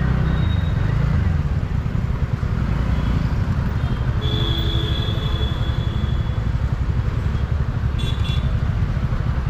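Steady low rumble of a scooter idling in stopped city traffic, amid the engines of surrounding cars and motorbikes. A vehicle horn sounds briefly about four seconds in.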